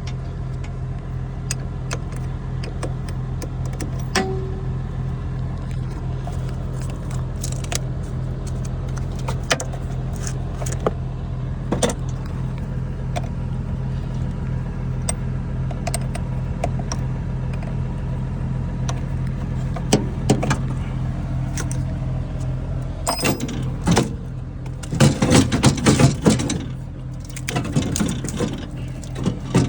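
Metal hand tools and battery hardware clicking and clinking as the battery cables are undone, over a steady low engine drone. The clatter gets busier and louder near the end.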